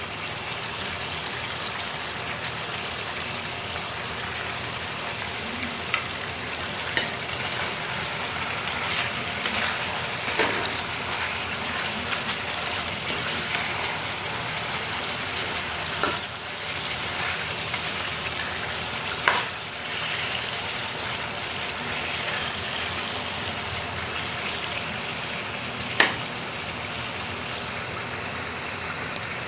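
Chicken pieces and potatoes sizzling steadily in hot oil in a kadai, with about five sharp knocks as a spatula strikes the pan while the pieces are turned.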